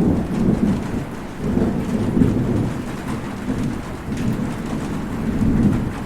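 Heavy rain falling steadily, with rolling thunder rumbling low underneath in several swells.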